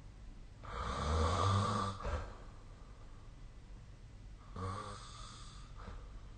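A sleeping person snoring: two snores about four seconds apart, the first louder and longer than the second.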